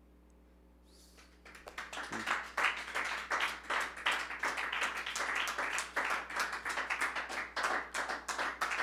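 Near silence for about a second and a half, then an audience applauding at the end of a poem.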